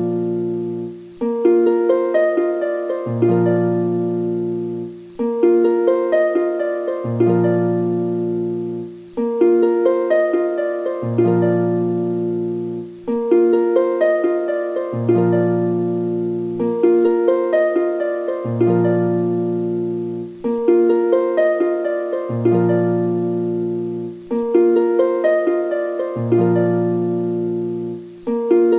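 Background music: a gentle plucked-string, harp-like melody over a low bass figure, repeating the same phrase about every four seconds.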